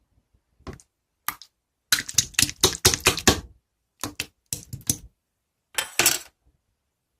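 Clear crystal slime being squished and pressed in the hands, making crackly clicks and pops from trapped air: a couple of single clicks, then a dense run of clicking for about a second and a half, and two shorter runs near the end.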